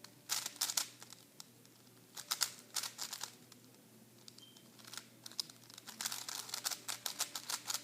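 Rubik's Cube being turned fast by hand: rapid clicking and clacking of the plastic layers in several quick flurries with short pauses between them.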